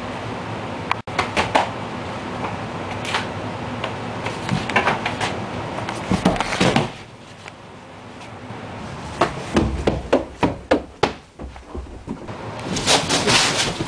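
Irregular knocks, thumps and scuffing as a large cardboard box is handled and moved about, the loudest thump about six and a half seconds in.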